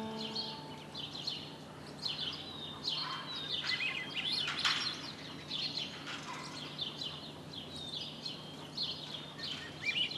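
Several wild birds singing and chirping, a mix of short calls and quick trills that overlap, over a faint steady low hum.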